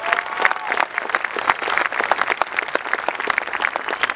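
Large audience applauding: dense, steady clapping that carries on without a break.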